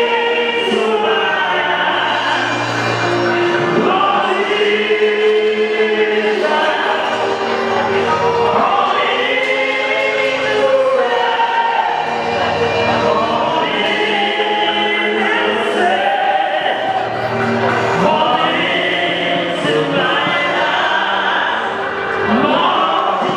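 Gospel singing by a group of voices, in sustained phrases of about two seconds each.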